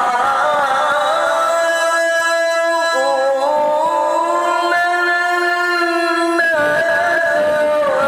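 A male qari reciting the Quran in the melodic tilawah style, amplified through a microphone, holding long ornamented notes that step up and down in pitch. The pitch drops sharply about six seconds in.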